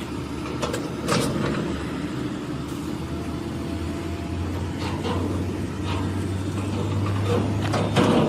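A large engine running steadily with a low hum, with a few short knocks or clanks, the last and loudest near the end.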